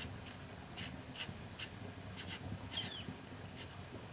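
A small bird chirping, short high chirps repeating two or three times a second, with one down-sliding chirp a little before the end.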